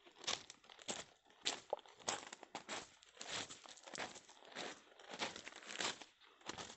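Footsteps crunching on dry, gravelly desert ground at about two steps a second, with dry brush rustling and scraping past.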